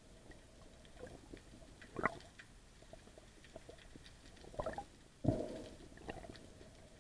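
Underwater sound heard through the camera's housing: scattered faint clicks and crackles, with a few louder muffled swooshes of water movement, one about two seconds in and two more around the five-second mark.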